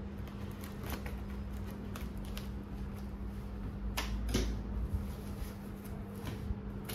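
Scissors slitting packing tape on a cardboard box, and the box being handled: faint scrapes and small clicks, with two sharper knocks about four seconds in.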